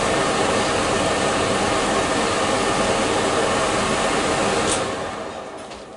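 Kitchen range-hood extractor fan running with a loud, steady rush. Near the end there is a click and the fan winds down.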